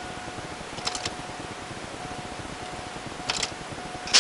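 Two short double clicks, about a second in and again near the end, typical of an ignition key being turned in an Oldsmobile Bravada, over a faint steady high hum that comes and goes.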